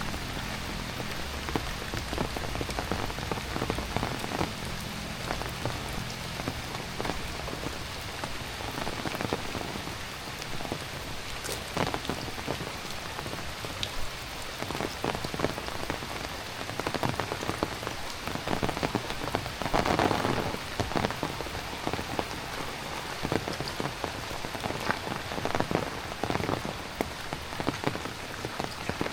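Heavy rain falling steadily, with many sharp ticks of drops striking close by. The rain swells a little louder about twenty seconds in.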